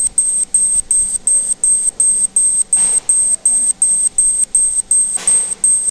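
CO2 laser engraving machine running: a steady high-pitched whine that cuts on and off at an even rhythm, about three times a second. Two brief rushing noises come in about three and five seconds in.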